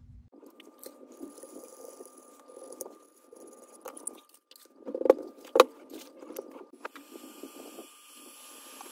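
Scrubbing and handling noise from a freshly soldered circuit board being cleaned, a rough, scratchy sound with two sharp knocks about five seconds in. A steady hiss comes in near the end.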